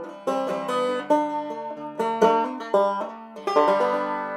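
Background music: a quick run of plucked string notes, ending on a chord that rings out near the end.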